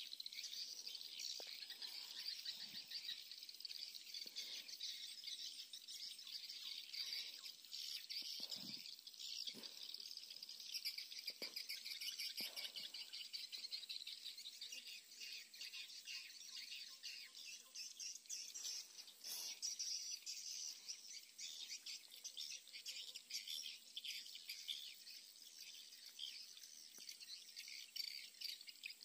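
Faint outdoor ambience: a steady, high chirring of insects with bird chirps mixed in.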